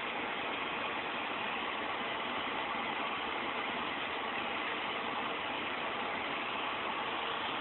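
Steady, even background hiss of room noise that stays level throughout, with no distinct events.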